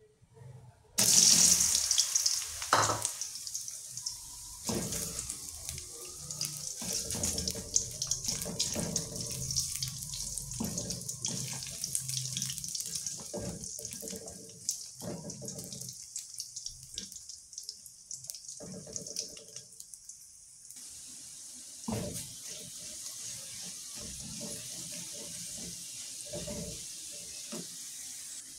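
Crinkle-cut plantain slices sizzling in hot oil in a wok. The sizzle starts suddenly and loud about a second in as the slices go into the oil, then settles to steady frying. The knocks and scrapes of a spatula stirring the slices are heard throughout.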